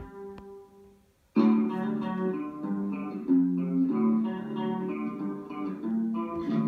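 Guitar-led music with plucked guitar notes. It fades almost to nothing about a second in, then comes back abruptly and loud.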